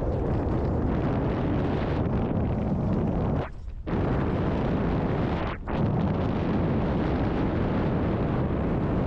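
Mountain bike ride down a rough trail: heavy wind buffeting on the microphone mixed with the rattle and rumble of the bike over the ground. The noise drops out briefly twice, about three and a half seconds in and again near the middle.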